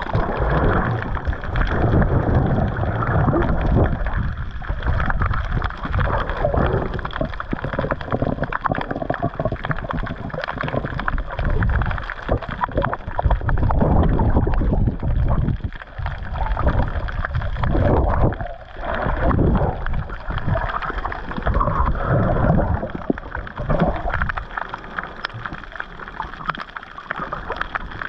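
Water sloshing and gurgling around a GoPro camera held by a snorkeller in the water, a muffled wash of noise that swells and ebbs in uneven surges as the swimmer moves.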